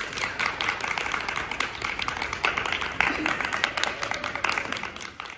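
A small group of people applauding, many hand claps overlapping, thinning out and dying away near the end.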